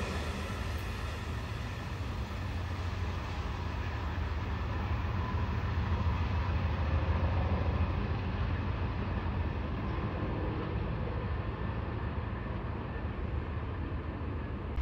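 Amtrak passenger train receding down the line: a steady low rumble, with the fainter wheel-on-rail noise above it dying away as the coaches pull off into the distance.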